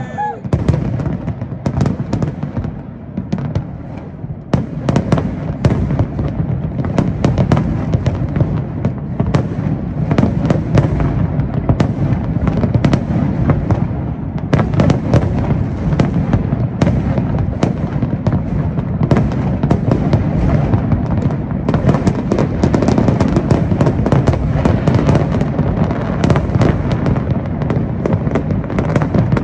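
Large fireworks display: aerial shells bursting in quick succession, many bangs overlapping over a steady low rumble. The barrage grows denser and louder about five seconds in.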